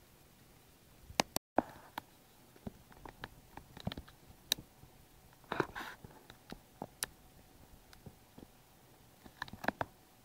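Irregular light clicks and taps, like small hard parts being handled, scattered over a faint steady background; the sound drops out completely for an instant about a second and a half in.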